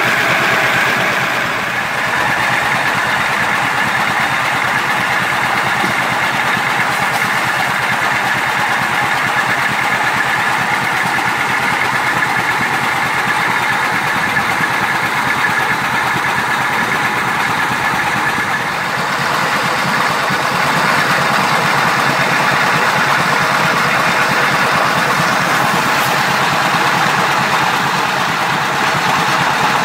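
McCormick-Deering 10-inch Type D feed grinder running under load, grinding shelled yellow corn into coarse meal: a steady, dense grinding noise. The English Iron Works 5x6 steam engine that drives it by a flat belt runs alongside.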